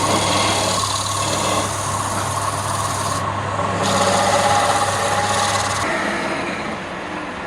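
Wood lathe running with a steady motor hum and rough scraping from the wood being worked on it; the hum stops about six seconds in.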